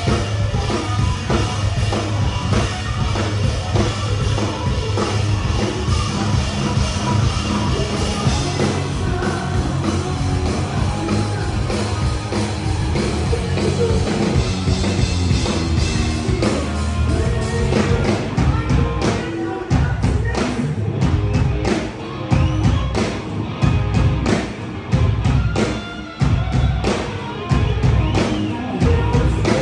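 Rock band playing live on an open-air stage: drum kit, bass and electric guitar. From about 19 seconds in the band switches to sharp stop-start hits with brief gaps between them.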